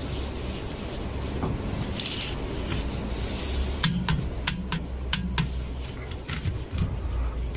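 Ratchet torque wrench clicking on a differential oil filler plug, about six sharp clicks over a second and a half midway as the plug is tightened to 15 Nm. A low steady hum underneath.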